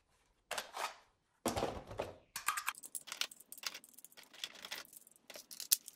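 Irregular plastic clicks and taps from a toy Glock 21 pistol and its small toy shells being handled. The clicks come in a quick, uneven patter, thickest in the middle.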